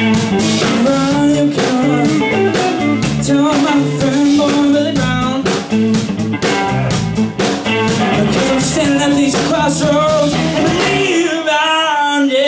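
Live blues-rock trio of electric guitar, electric bass and drum kit playing an up-tempo number. About eleven seconds in, the bass and drums stop, leaving the singer's voice wavering almost alone.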